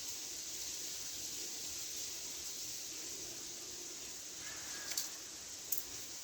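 Steady hiss of outdoor urban background noise. A faint short chirp comes about four and a half seconds in, and two sharp clicks follow near the end.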